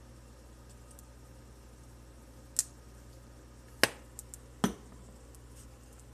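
About five sharp clicks and knocks over a low steady hum, starting about two and a half seconds in. The loudest comes near four seconds in and another follows soon after.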